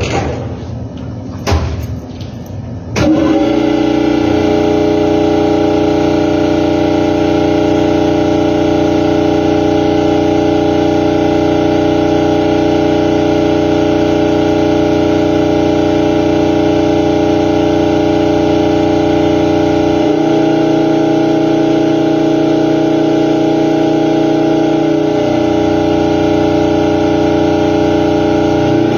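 Freshly overhauled reciprocating compressor starting up after a couple of sharp clicks, then running steadily with a strong, even hum. About two-thirds of the way through, the hum changes tone for about five seconds before settling back.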